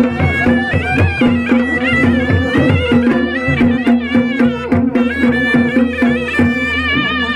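Traditional Pahari folk music: a reedy wind instrument plays a wavering melody over a steady drone, with drums beating a regular rhythm.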